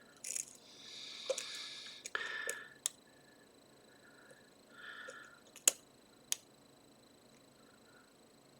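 A lock pick working inside an Abus GDS padlock with Christmas-tree pins: scattered small sharp clicks as the hook lifts and sets pins, the sharpest a little past halfway, with soft rustling of handling in the first half.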